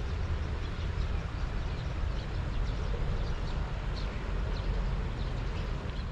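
Steady outdoor ambient noise with a low rumble, and faint high chirps scattered through it.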